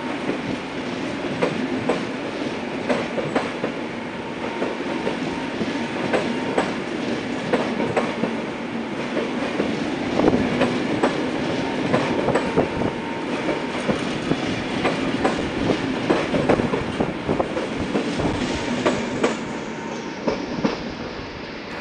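Corail passenger coaches rolling past along the platform: a steady wheel-on-rail rumble with rapid clicking of wheels over rail joints, fading near the end as the last coach goes by.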